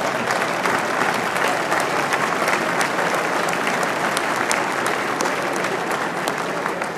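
Large audience applauding, a dense steady patter of many hands clapping that eases off near the end.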